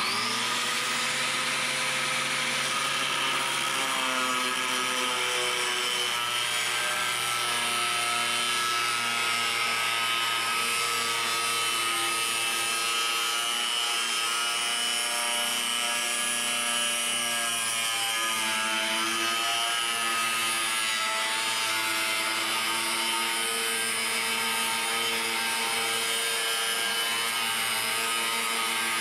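DeWalt 7-inch corded angle grinder starting up with a quick rising whine, then cutting through the 3/8-inch steel wall of a large propane tank with a cutoff wheel. It runs steadily and loudly, its motor pitch wavering as the wheel bites into the steel.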